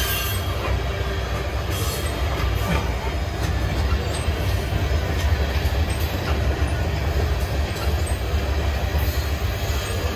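Cars of a long freight train rolling past: a steady deep rumble of steel wheels on rail, with occasional faint clanks.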